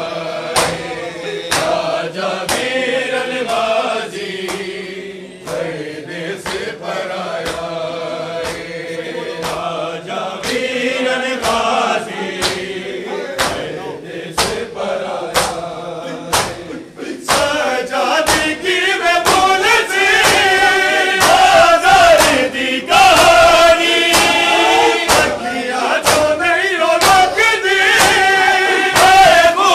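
Men chanting a nauha (Shia lament) in unison, with the rhythmic slaps of hands beating on bare chests (matam) keeping the beat. The slaps come about once a second at first, then a little past the middle they quicken to about two a second and the chanting grows louder.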